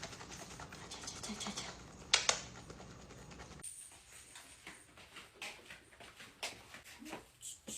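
Scattered clicks and rustling of objects being handled, with two sharp clicks about two seconds in. From about halfway the background goes quieter and faint high chirping begins.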